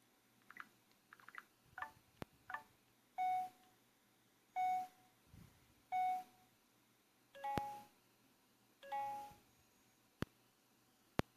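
A series of short electronic click replacement sounds, played one after another. First come faint ticks and short blips, then three identical half-second beeps, then two longer two-note chimes, with single sharp clicks between them.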